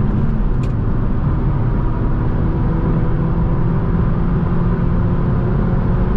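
Chevrolet Cruze 1.4 turbo engine pulling at full throttle towards top speed, heard from inside the cabin as a steady low drone under road and wind noise. The exhaust, cut down to a single intermediate muffler, gives no resonance in the cabin.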